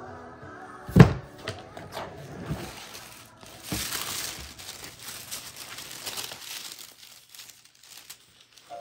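Tissue paper rustling and crinkling as a gift box is unpacked, densest in the middle and fading near the end. A loud thump about a second in, the loudest sound, comes from the box being handled.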